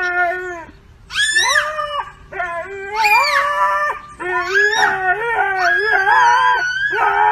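A husky howling along with a toddler's high wailing cry: several long, wavering howls with short breaks between them, the two voices overlapping at times.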